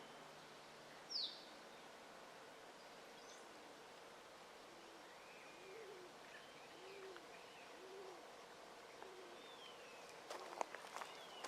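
Faint outdoor ambience with birds calling: one sharp, falling chirp about a second in, then a run of short, low, arched calls repeating about once a second. A few sharp clicks near the end.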